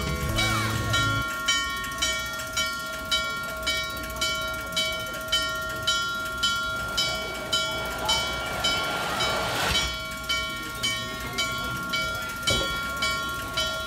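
Norfolk & Western 611's locomotive bell ringing steadily, about two strikes a second. A burst of steam hiss rises and cuts off about two-thirds of the way through.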